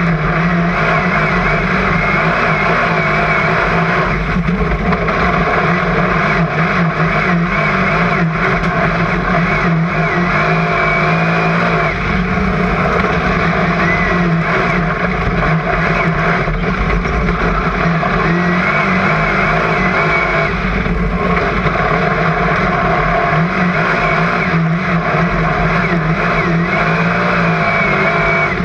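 Super Saloon speedway car's V8 engine running hard under race load, heard from inside the cockpit, its pitch rising and falling slightly through the laps.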